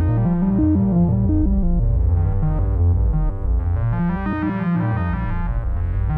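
RYK Modular Night Rider Eurorack synthesizer module playing a fast sequence of stepping notes: a heavy bass line under bright, buzzy overtones.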